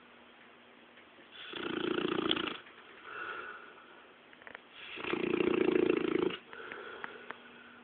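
English Mastiff snoring in its sleep: two loud snores about three seconds apart, each followed by a quieter one.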